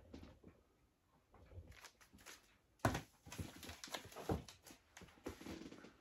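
Vinyl record albums being handled at a desk: soft rustling and sliding of cardboard sleeves, with a sharp knock about three seconds in as an album is set down, and a softer thump a little later.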